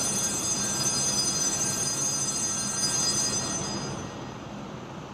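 Altar bells ringing in a steady, continuous high jingle that stops about four seconds in, over a low steady hum; the bells mark the elevation of the chalice at the consecration.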